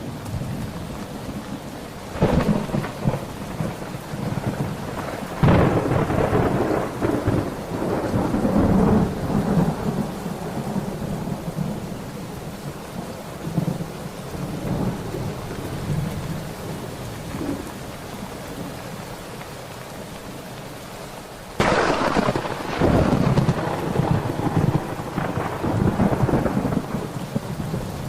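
Thunderstorm: steady rain with repeated thunder. A clap about two seconds in, a louder one about five seconds in that rumbles on for several seconds, and a sharp crack about three-quarters of the way through followed by long rolling rumbles.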